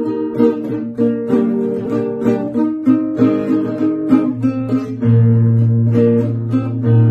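Acoustic guitar strummed in a steady rhythm, the instrumental introduction to a song. A deep bass note comes in and holds about five seconds in.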